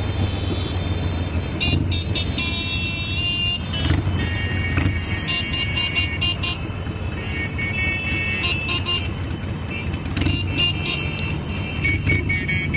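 A mass of motorcycles riding together, with a steady low engine and road rumble, and horns honking in several held blasts that come and go.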